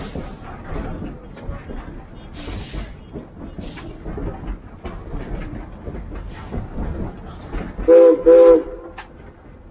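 Steam locomotive running along the track, then two short blasts of its steam whistle about eight seconds in, sounded as a greeting to a person by the line and a passing car.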